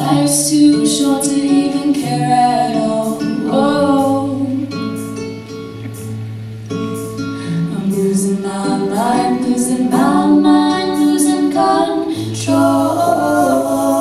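Two female voices singing a pop song in harmony, holding long notes, with acoustic guitar accompaniment.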